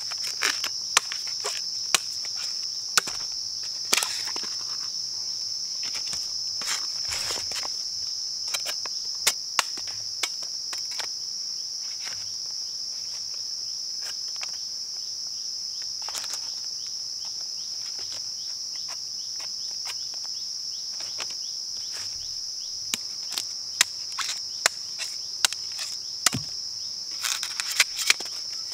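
Machete blade chopping and slicing into bamboo shoots: sharp knocks about once a second at first, then a quick cluster of strikes near the end. Under them, a steady high drone of insects.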